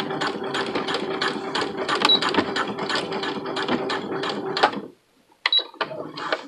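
Electric sewing machine stitching a zipper into pants, running steadily with a hum and a quick, even tick of the needle, roughly four to five stitches a second. It stops about five seconds in, and a few handling clicks follow.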